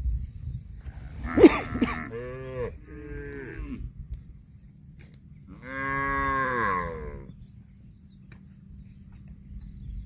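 Cow mooing: two short moos about two seconds in, then one longer moo near the middle. A sharp, loud noise comes just before the first moos.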